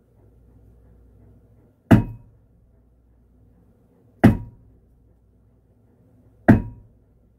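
Three hard bangs about two seconds apart, each with a short ring, from a metal dumbbell struck up against the ceiling: banging back at the upstairs neighbours over their floor noise.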